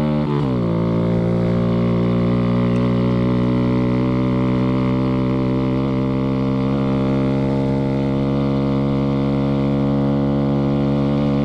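2014 Honda Grom's 125 cc single-cylinder four-stroke engine on a full-throttle top-speed run. Its pitch falls sharply about half a second in as it shifts up a gear, then it runs steadily at high revs.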